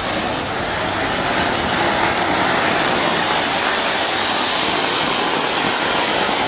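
Rajeshwari Fireworks 'Rangeela' anar (flower pot firework) spraying a tall fountain of sparks with a loud, steady hiss that swells over the first second or two and then holds.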